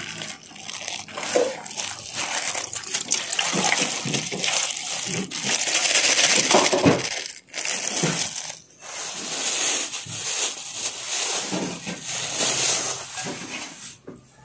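Thin plastic bag crinkling and rustling as a bag of vegetable soup is untied and squeezed out, with the soup splashing into an aluminium bowl.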